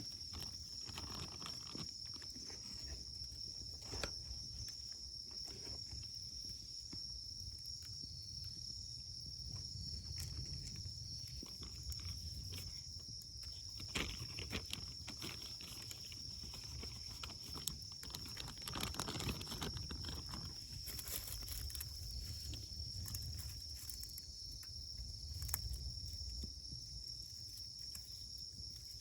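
Wood campfire burning, crackling with scattered sharp pops, over a low rumble. A steady high insect chirring runs behind it.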